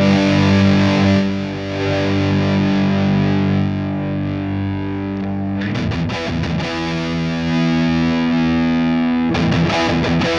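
Distorted electric guitar, a Fender Stratocaster played through a Line 6 Helix amp-and-cab model. One chord rings for about five seconds, a quick strummed change leads to a second held chord, and near the end it turns to fast, even strumming, about four or five strokes a second.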